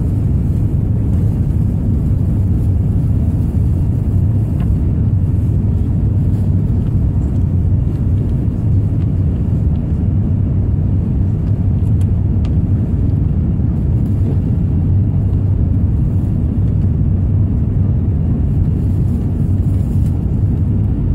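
Steady low rumble of an airliner's jet engines and rushing air, heard inside the passenger cabin during the climb just after takeoff.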